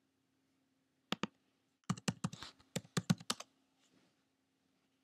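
Typing on a computer keyboard to log in: two clicks about a second in, then a quick run of about a dozen keystrokes between two and three and a half seconds in as the password is entered.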